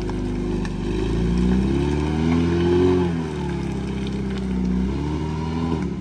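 UAZ off-roader's engine revving up and easing off as it labours through a deep rut, its axles dragging on the ridge between the tracks. The revs climb from about a second and a half in, peak around three seconds, drop, and climb again near the end, over a steady low drone.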